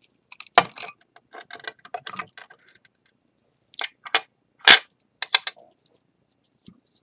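Small hard objects clicking and knocking against a work surface and each other as they are handled, in two uneven clusters, the loudest knock a little past the middle.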